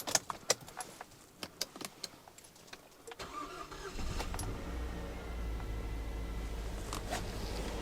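Mazda 2.0 L LF four-cylinder petrol engine starting after a cylinder decarbonising treatment. A run of sharp clicks comes first, then a brief crank about three seconds in. The engine catches and settles into a steady idle.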